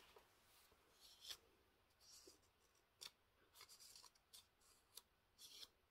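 Near silence: room tone with a few faint, short rustles and ticks scattered through it.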